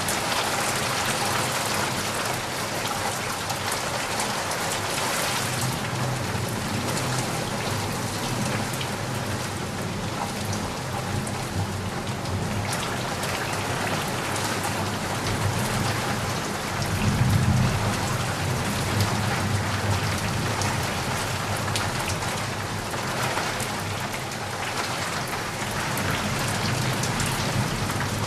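Heavy rain falling steadily, with a low rumble of thunder swelling about two-thirds of the way through.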